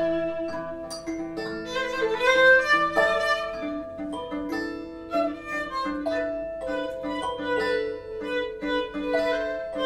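Instrumental background music: long held violin notes over a quick run of short plucked notes.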